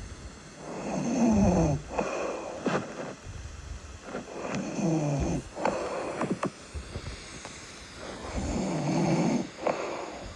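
A sleeping person snoring: three long, rattling snores about three and a half seconds apart, each with its pitch sliding down, with breathing and a few short clicks between them.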